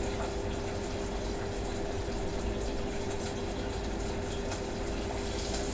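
Kitchen range hood extractor fan running: a steady whoosh with a constant hum.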